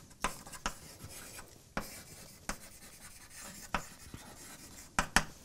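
Chalk writing on a blackboard: faint scratching strokes with a few sharp taps of the chalk against the board, two in quick succession near the end.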